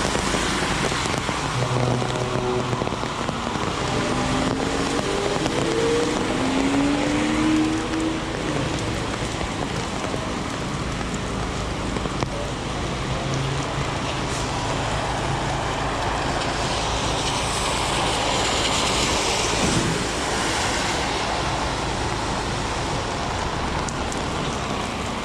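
Heavy rain falling on city pavement with street traffic; a car passes on the wet road about two-thirds of the way in, its tyres hissing as it goes by.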